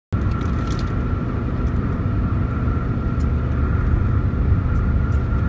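Steady low road and engine rumble inside the cabin of a moving Toyota car at highway speed, with a faint steady whine above it. It cuts in abruptly at the start.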